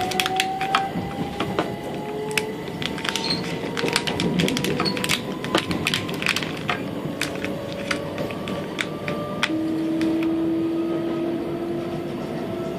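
Passenger train heard from inside the carriage while moving: a steady rumble of wheels on the track with many sharp clicks and rattles, under a thin motor whine that slowly rises in pitch as the train gathers speed.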